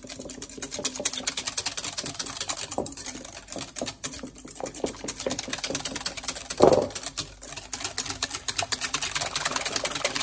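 Wire balloon whisk beating cake batter by hand in a glass bowl: fast, even clicking of the wires against the glass, broken by a couple of short pauses, with one louder knock a little past halfway.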